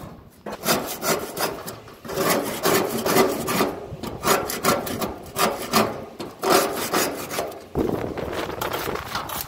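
Wire-bristle grill brush scrubbing old carbon buildup off the inside walls of a gas grill's firebox, in repeated rough back-and-forth strokes.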